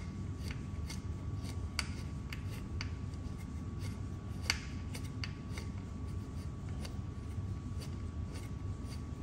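Small hand screwdriver driving a screw into an e-bike skid plate, giving light, irregular clicks a few times a second, one a little sharper about halfway through.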